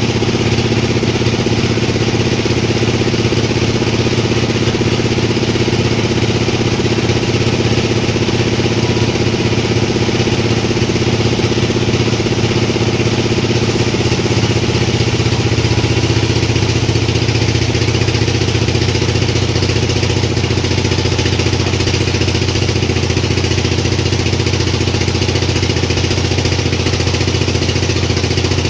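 Sawmill machinery running with a steady, unchanging engine drone and a constant hiss.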